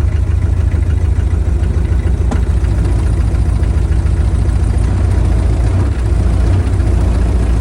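Skid steer's diesel engine idling steadily just after a cold start in about 20-degree weather, having caught and stayed running after repeated glow-plug cycles.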